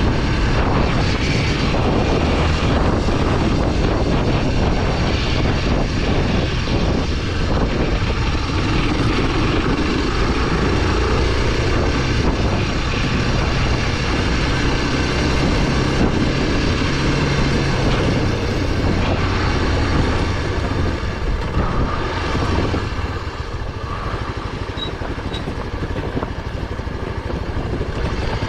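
Honda NX 250's single-cylinder four-stroke engine running steadily as the motorcycle is ridden offroad, easing off a little about three-quarters of the way through.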